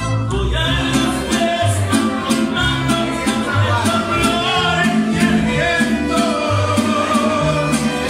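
A live mariachi band playing, with a guitarrón plucking a stepping bass line under strummed vihuela and guitar and violins.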